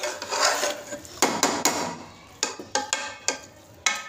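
Metal slotted spatula scraping and knocking against an aluminium pot while stirring pulao rice whose water has cooked off: a series of sharp clinks and scrapes in irregular clusters with short pauses between.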